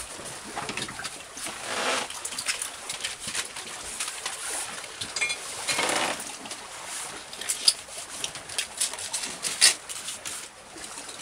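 Debris being cleared by hand: stones, styrofoam and wood pieces knocking and scraping, with a plastic trash bag rustling. There are irregular knocks throughout, and longer rustles about two and six seconds in.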